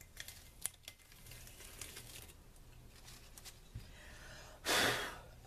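Clear adhesive contact paper being peeled off a glazed ceramic platter, with faint crackling and small clicks as it comes away. Near the end there is a louder rustle of the plastic sheet, lasting about half a second.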